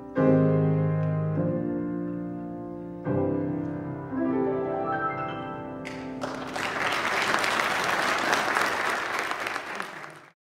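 Grand piano playing the closing chords of a song: two chords struck a few seconds apart and left to ring out. About six seconds in, an audience starts applauding, and the applause cuts off near the end.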